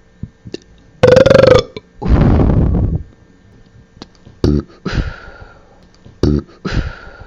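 A person burping and blowing out air, slowed down. A loud burp comes about a second in, followed by a long breathy blow. Then two shorter burps, each followed by a blow, come near the middle and near the end.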